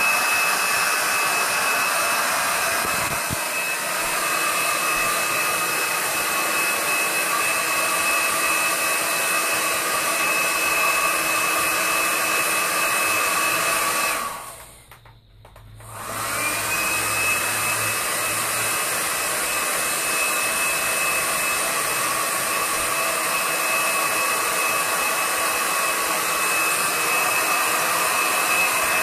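Black & Decker heat gun running steadily, its fan blowing hot air with a constant high whine to melt the wax cappings off a honeycomb frame. It cuts out for about two seconds halfway through, then comes back on with its whine sliding up to pitch.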